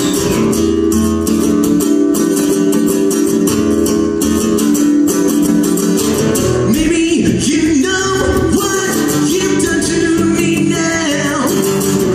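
A man singing and strumming an acoustic guitar live. The guitar is heard alone for the first half, then the voice comes in and carries over the strumming.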